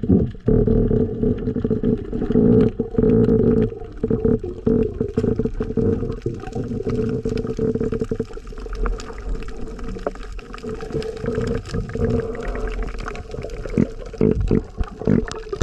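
Muffled underwater sound from a camera below the sea surface: a rumbling, gurgling water noise under a steady drone, with many short clicks scattered throughout.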